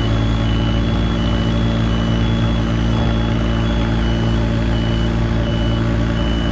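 A diesel engine running steadily under an electronic warning beeper that alternates between a higher and a lower tone, about three beeps a second, typical of a Skyjack boom lift's travel alarm while it is being unloaded.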